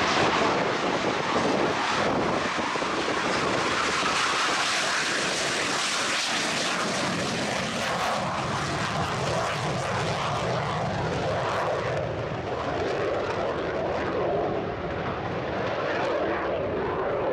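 BAe Hawk 127's single Adour turbofan at take-off power through the take-off run and climb-out: loud, steady jet engine noise, its high hiss thinning over the last few seconds as the jet climbs away.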